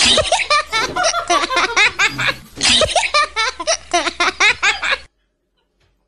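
A woman laughing loudly and hard in rapid bursts, cutting off suddenly about five seconds in.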